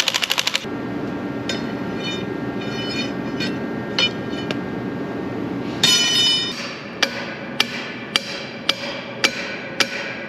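A DeWalt cordless impact wrench hammering on a hydraulic cylinder's end, stopping about half a second in. About six seconds in there is one loud metallic clank. From about seven seconds on, roughly seven sharp metal taps come about twice a second, each ringing briefly, as a large wrench strikes the cylinder's gland end to work it loose.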